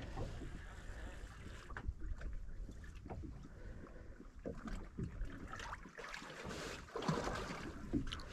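Faint wind and water lapping around a small fishing boat, with scattered small knocks and clicks.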